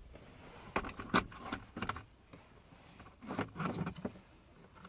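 A socket wrench clicking and rattling on the 8mm bolts of a car's fuel pump access cover, in two short bursts, about a second in and again past three seconds.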